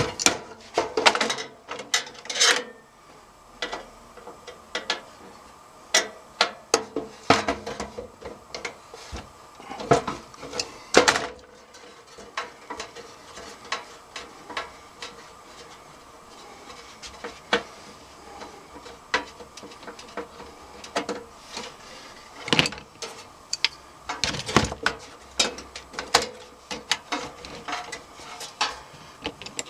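Irregular clicks, taps and scrapes of pliers and metal parts being handled inside an open steel desktop computer case as it is taken apart.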